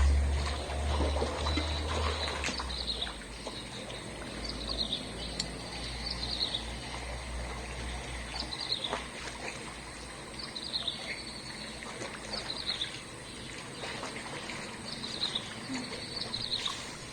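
A bird calling over and over, a short high chirp that falls in pitch, repeated about every two seconds. A low rumble runs under the first few seconds.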